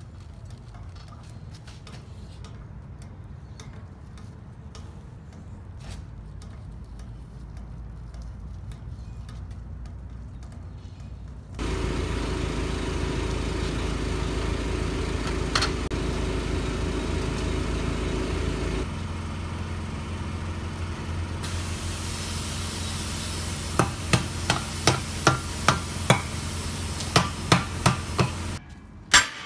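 An air-powered bead breaker clamped on a 20.5-25 loader tire rim starts up about twelve seconds in and runs loud and steady, its note changing partway through. Near the end comes a quick run of sharp knocks, about three a second.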